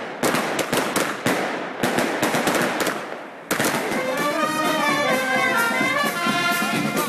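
A battery of firecrackers going off on the street, a rapid string of sharp bangs for about three seconds. About three and a half seconds in, a brass band starts playing.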